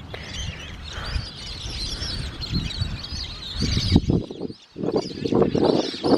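Many birds chirping and twittering over the water, a busy chorus of short high calls. A low rumble of wind buffets the microphone under the calls and gusts harder in the second half.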